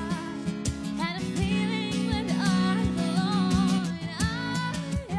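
Music: a woman singing over strummed acoustic guitar, with steady low notes underneath and light percussion hits.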